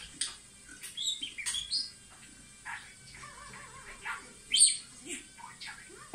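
Budgerigar warbling: a run of quick chirps and chattering warble notes, with one sharp, loud chirp about four and a half seconds in.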